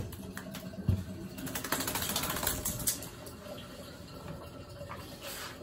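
Quick, light clicks and taps on a wet tiled floor as a wet dog moves about while being towel-dried, with a soft thump about a second in.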